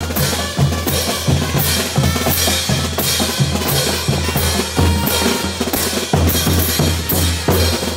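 A Bolivian brass band playing a caporales on the march. Several pairs of crash cymbals clash together roughly twice a second over pounding bass drums, with steady low brass underneath.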